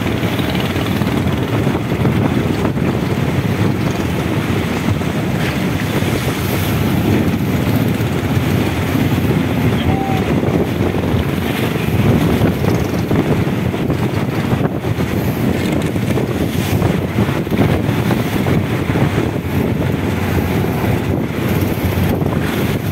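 Motorized fishing boat running over choppy water, its engine drone mixed with waves and heavy wind buffeting the microphone.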